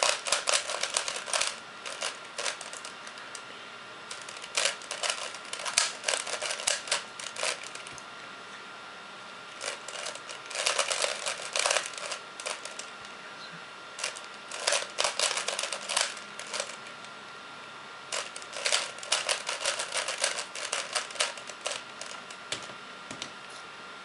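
A plastic 3x3 Rubik's cube being turned by hand: rapid runs of clicking layer turns in five or so bursts of two to four seconds each, separated by short pauses.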